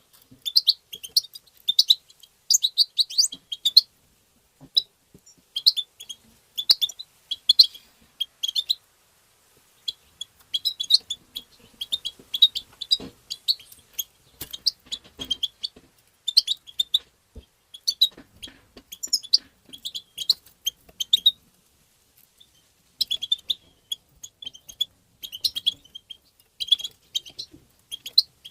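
European goldfinch twittering: quick high chirps and trills in bursts of a second or two, separated by short pauses.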